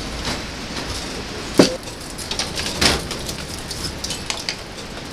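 Gusty wind rattling a polycarbonate greenhouse, with scattered light clicks and two sharp knocks a little over a second apart, the first the loudest, while a roof vent's cord is pulled tight.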